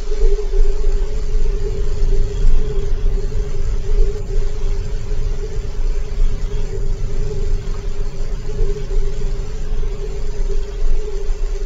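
A loud, steady low drone: a deep rumble under a constant hum that does not change.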